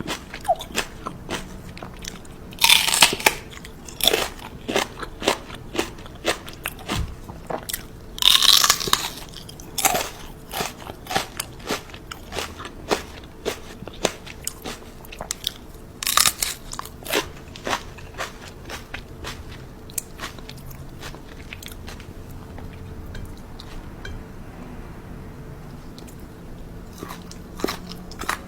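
Crunchy food being bitten and chewed: a run of short crisp crunches, with louder bursts of crunching about 3, 8 and 16 seconds in, growing sparse after about 20 seconds.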